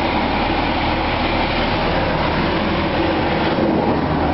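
Automatic car wash running, heard from inside the truck's cab: a steady, loud spray of water against the body over a low hum.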